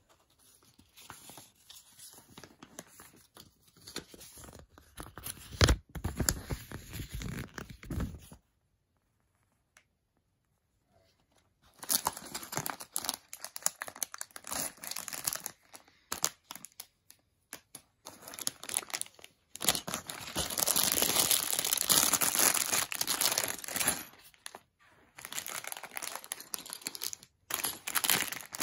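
Clear plastic LEGO parts bags crinkling and rustling as they are handled and shuffled about, in several bursts. There is a silent gap about a third of the way in, and the longest, loudest stretch of crinkling comes a little past the middle.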